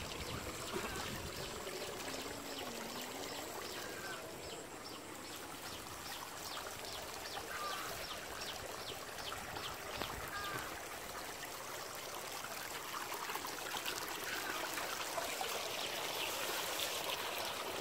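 Water running steadily through a cut in a muddy field bank, trickling and pouring out of the flooded field. A faint, fast, regular ticking sounds in the background for much of the time.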